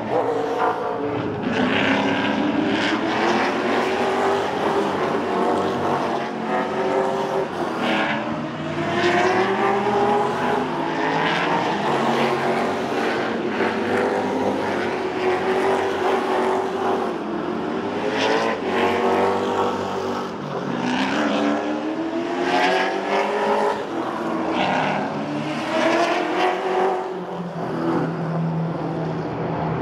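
Race car engines running hard, revving up through the gears one after another, the pitch climbing and then dropping sharply at each gear change.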